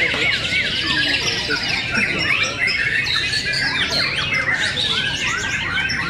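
Many caged white-rumped shamas singing at once: a dense, unbroken chorus of overlapping whistled notes, quick up-and-down phrases and fast rattling trills.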